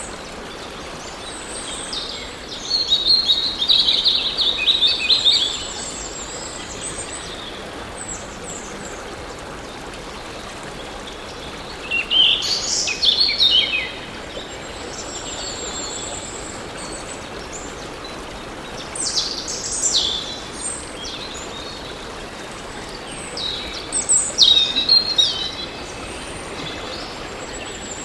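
Birds singing in four separate bursts of quick chirps, each lasting one to three seconds, over a steady rush of flowing water.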